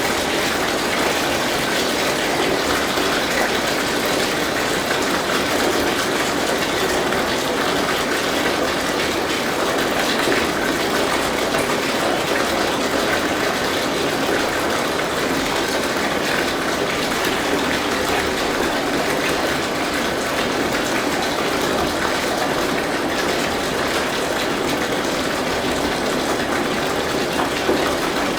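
Bathtub filling: tap water pouring steadily into the tub, an even gushing rush with no breaks.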